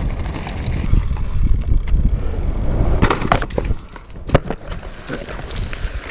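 Wind buffeting and tyre rumble on a mountain bike's action-camera mic as it rides fast down a rough dirt trail. Then a series of sharp knocks and clatter from about three seconds in, the loudest near the middle of the second half, as the bike and rider crash into the dirt.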